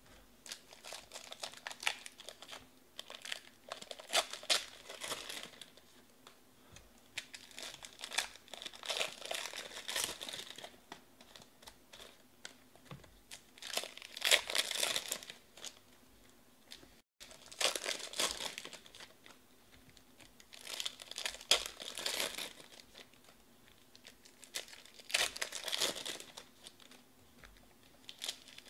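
Foil wrappers of 2020 Panini Prizm baseball trading-card packs crinkling and tearing as they are ripped open by hand, one pack after another, in bursts every few seconds with quieter pauses between.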